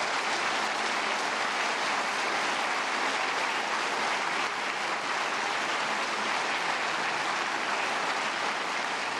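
Audience in a conference hall applauding steadily.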